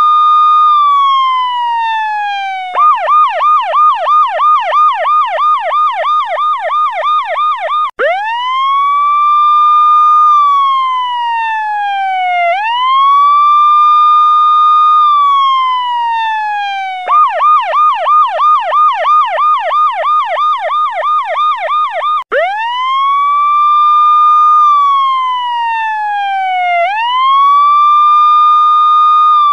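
Electronic police-style siren sound effect alternating between a slow wail, which rises, holds and falls about every four and a half seconds, and a fast yelp of about two to three sweeps a second. It changes over to the yelp about three seconds in and again near the middle, then returns to the wail each time.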